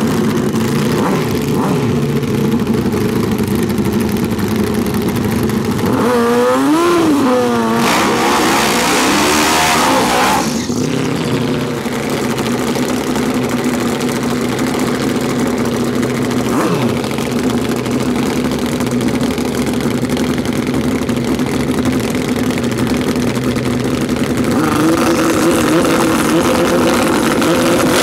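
Turbocharged drag bike engines running at a rough idle, with throttle blips that make the pitch waver about six seconds in and again near the end. A loud hiss rushes in for about two seconds, starting about eight seconds in.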